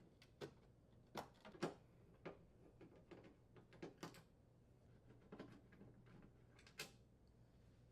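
Faint, irregular clicks and light taps of a screwdriver and screws being worked loose from an oven door's metal panels.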